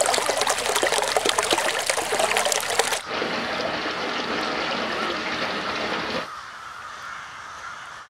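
Water splashing over rocks in a stream, busy and uneven, for about three seconds. It cuts suddenly to a bathtub faucet running steadily into the tub, which turns quieter and duller about six seconds in.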